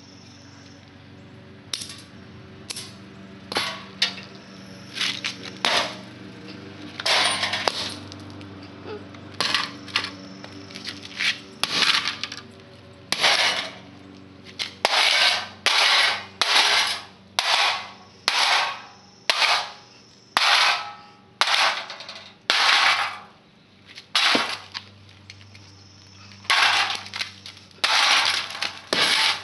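Sledgehammer smashing the sheet-metal remains of a heater and electronics on concrete: metallic bangs, irregular at first, then a steady run of about one strike a second, with a low steady hum underneath.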